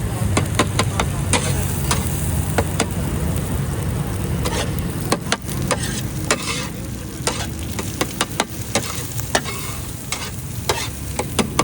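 Daal anda tikkis sizzling in oil on a street vendor's griddle, with a metal spatula clinking and scraping against it many times at an irregular pace, over a steady low hum.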